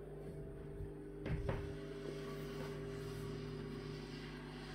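A steady low hum with several held tones, broken by two brief knocks a little over a second in.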